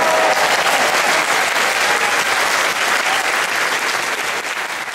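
Crowd applause, many people clapping at once, loud and steady, then fading near the end.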